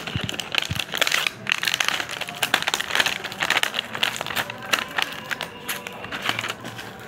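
Crinkling and crackling of a thin clear plastic blister pack of doll shoes being handled, with many small irregular clicks.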